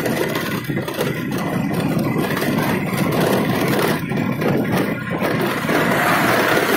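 Motorbike riding along a street: engine running with a steady rush of wind and road noise over the microphone.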